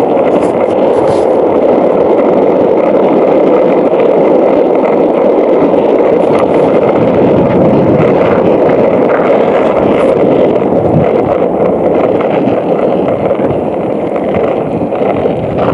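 Skateboard wheels rolling fast downhill over rough asphalt: a loud, steady rumble, with a few faint clicks.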